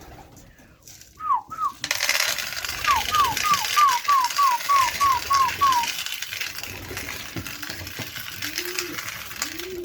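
A person whistling a string of short falling notes, about three a second, as a feed call to pigeons, over a steady rushing hiss. Low pigeon coos follow near the end.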